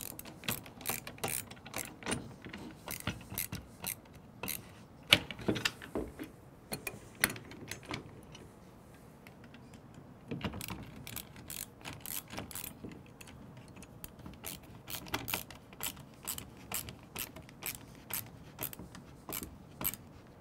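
Screwdriver with a Phillips bit tightening M5 screws down into lock nuts held by an adjustable wrench: a long run of quick metallic clicks, a few a second, with a brief quieter stretch about halfway through.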